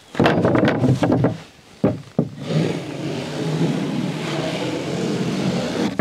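Freshly sawn boards clattering as they are set down on a stack on a tractor's pallet forks, then two sharp wooden knocks. After that, a steady rushing noise runs on.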